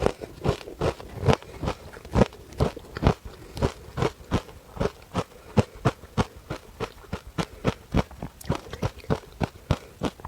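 Ice being bitten and chewed, a steady run of sharp crunches at about three a second.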